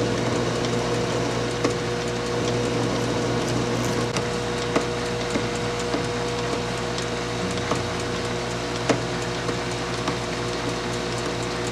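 Small metal lathe running at slow speed with a steady hum while a narrow parting blade takes very light cuts into the spinning metal billet, with a few sharp ticks from the cut, the loudest about nine seconds in.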